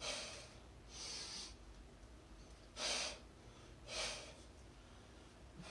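A man breathing hard after exercise: four heavy breaths in two pairs, with pauses between.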